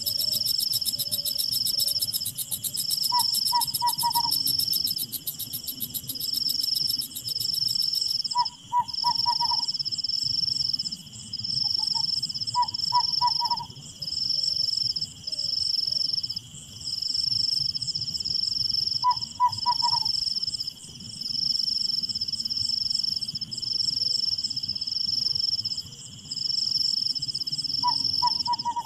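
Night insects, crickets, trilling steadily in long pulses of about a second each. Every few seconds an animal gives a short call of three or four quick notes, heard about six times.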